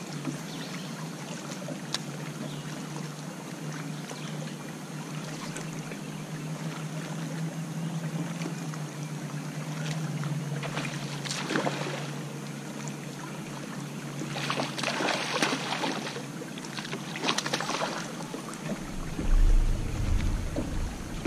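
A hooked spotted bass splashing at the surface in several short bursts in the second half as it is reeled in, then a few low thumps as it is swung into the boat. A steady low hum runs under it and stops shortly before the thumps.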